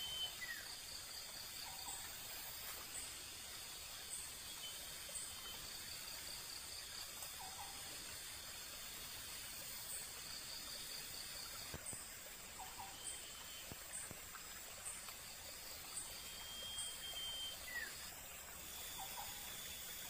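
Faint outdoor insect chorus: a steady pulsing high trill and a short high chirp about once a second, with a few brief lower calls now and then.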